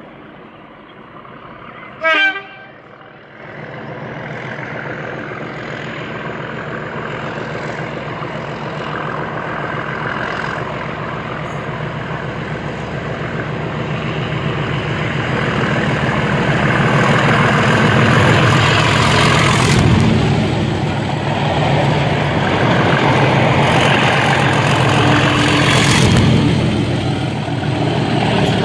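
One short horn blast about two seconds in, then two Colas Rail Class 37 diesel locomotives with English Electric V12 engines running, growing steadily louder as they and their test train approach and pass.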